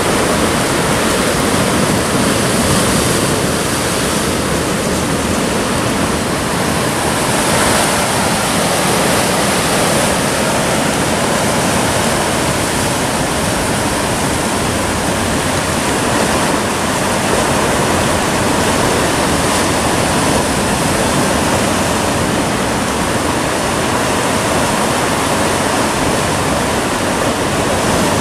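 Sea surf breaking and churning against a rocky shore: a loud, steady rush of water with slight swells and no distinct breaks.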